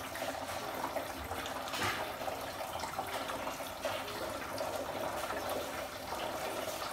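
Water poured from a plastic jug through a plastic funnel into the hollow plastic base of a Decathlon freestanding punching bag, a steady trickling stream as the base fills.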